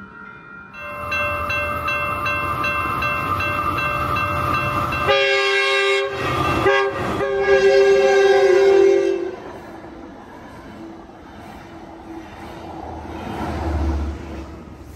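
Railroad crossing bells ring, then a Metrolink F125 diesel locomotive sounds its horn in long blasts with a short break, the loudest part, for about four seconds. The train then passes the crossing, its low rumble building near the end.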